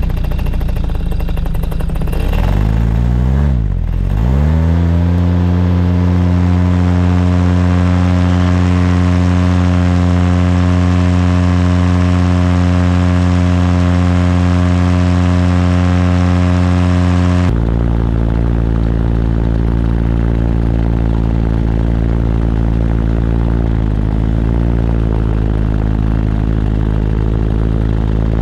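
Paramotor's two-stroke engine and propeller running. About three to four seconds in the pitch dips and climbs back up, then it holds steady at high power through takeoff and climb. About two-thirds of the way through the sound changes abruptly to a deeper, lower running tone.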